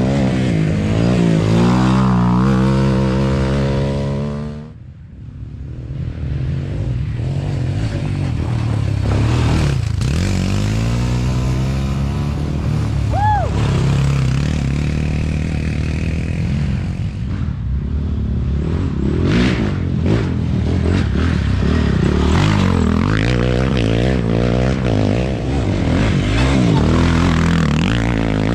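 Race ATV engines revving, rising and falling in pitch as one quad after another accelerates past close by on a dirt trail. The sound drops away briefly about five seconds in, then builds again as the next machines arrive.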